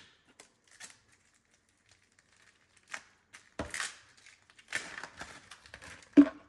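Plastic wrapping crinkling and tearing in intermittent rustles as a new carbon filter cartridge is unwrapped, with a sharp knock near the end.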